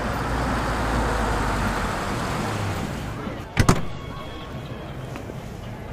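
A car rolling slowly along a street and pulling up. Its tyre and road noise swells over the first two seconds and then fades, and a sharp double thump comes about three and a half seconds in.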